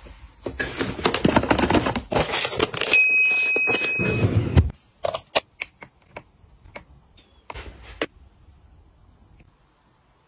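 Packaging rustling and plastic containers clattering as groceries are handled and put away in a refrigerator, with a short steady beep in the middle. The handling then thins out to a few separate taps and clicks, and stops about two seconds before the end.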